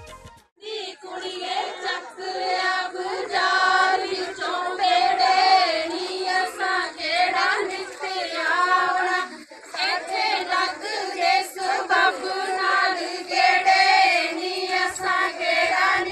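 A group of women singing a Punjabi folk song together in unison, in high voices. It begins about half a second in.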